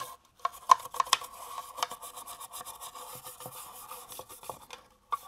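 Small bristle brush scrubbing phosphoric acid over the rusty steel body of an HK G3 rifle magazine to lift the rust: a fast, continuous run of scratchy brushing strokes that stops shortly before the end.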